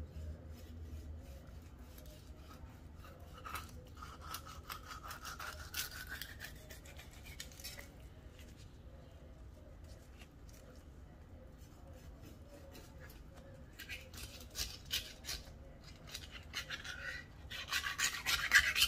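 Kitchen knife sawing through a raw mackerel along its backbone to cut away a fillet: quick runs of rasping strokes with a faint rising squeal from about three to eight seconds in. After a pause, more strokes come back, densest and loudest near the end.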